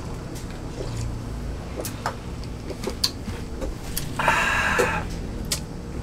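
Low room noise at a restaurant table, with a few light clicks of brass makgeolli bowls and dishes against the table, and a brief rushing noise about four seconds in, lasting under a second.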